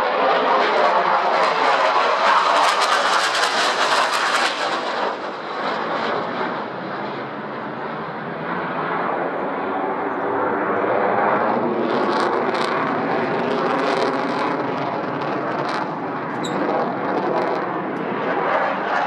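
Eurofighter Typhoon's twin Eurojet EJ200 turbofans climbing away after take-off: a steady jet engine noise, loudest and most hissing in the first five seconds, with sharp crackles in the later part.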